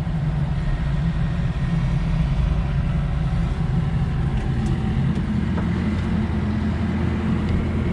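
Heavy engine running steadily at a low idle while a machine is positioned on a trailer, with a few faint clicks about halfway through.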